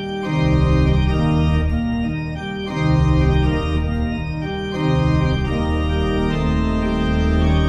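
Large church pipe organ, the Willem Hermans instrument rebuilt by Bianchi and the Lingiardi brothers, playing slow sustained chords over a deep bass. The chords change about every second or so.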